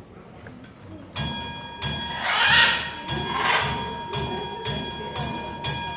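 A bell on a macaw's trick counting machine, struck again and again about twice a second and ringing on between strikes, counting out the number eight. A louder rushing noise comes up between the strikes about a second and a half in.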